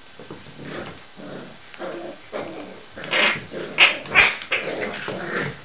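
Working cocker spaniel puppies growling and yapping in play as they tussle over rope toys. A run of short growls builds up, with the two loudest, sharpest yaps about four seconds in.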